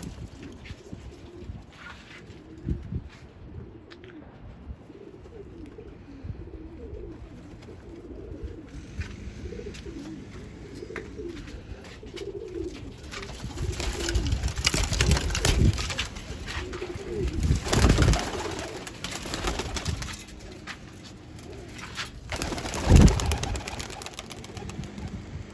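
Pakistani flying pigeons cooing, with low wavering coos throughout. Louder bursts of noise come from about halfway through, with a sharp thump near the end.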